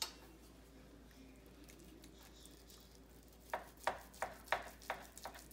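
Knife slicing corned beef on a plastic cutting board, with a carving fork holding the meat. After a quiet start, a quick run of about six sharp taps comes from about three and a half seconds in, about three a second.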